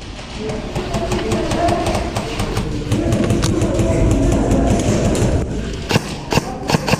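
Airsoft guns firing, a dense scatter of sharp shots and BB hits, ending in a quicker, regular string of shots, with music playing underneath.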